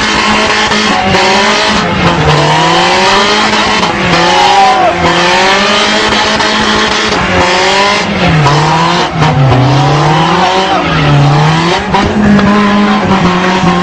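Car engine revving hard with tyres squealing continuously as the car spins doughnuts in a burnout, the engine pitch rising and falling every second or two.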